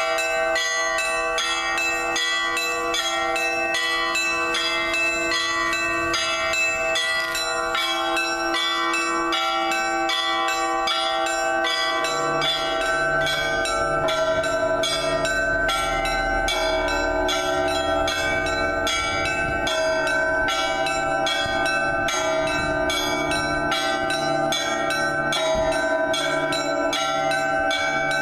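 Orthodox church bells ringing a continuous peal, the smaller bells struck rapidly over and over. Deeper bells join about twelve seconds in.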